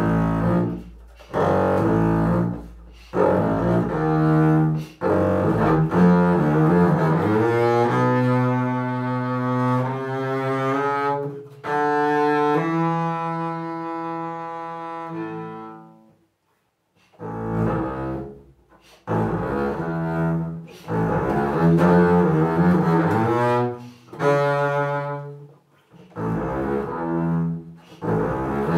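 Solo double bass played arco, with no accompaniment: phrases of short bowed notes broken by brief pauses, then long sustained notes in the middle, a short silence about halfway through, and quicker phrases again after it.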